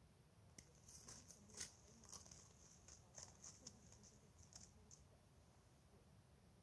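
Faint footsteps crunching in fresh snow: a quick, irregular run of short crackles that starts about half a second in and stops about five seconds in.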